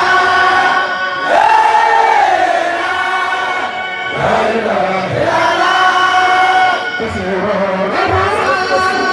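A crowd of men chanting a Sufi zikr (dhikr) together, in long drawn-out phrases of a couple of seconds each.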